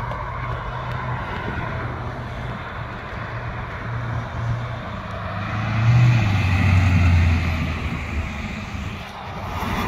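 Lowered 1983 S-10 mini truck with a swapped-in V8 driving past, its low exhaust note growing louder and dropping in pitch as it goes by about six to seven seconds in, over steady road traffic.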